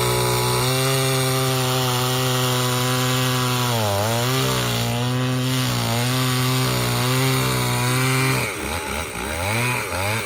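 Two-stroke chainsaw running at full throttle through wood, its pitch sagging briefly about four seconds in as it loads up in the cut. Near the end it drops off the throttle and the engine note falls and wavers.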